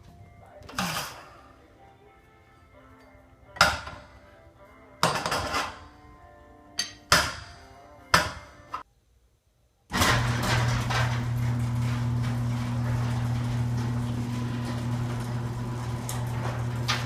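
Sharp metallic clanks and clinks, about six of them, of steel winding bars being worked in a garage door torsion spring's winding cone, turning the spring a quarter turn at a time. After a moment of silence about ten seconds in, a steady low hum starts and keeps going.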